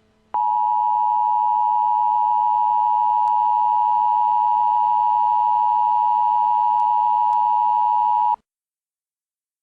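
Emergency alert attention tone: one loud, unbroken steady tone that switches on abruptly, holds for about eight seconds and cuts off sharply, the alarm that signals an emergency warning is about to be read.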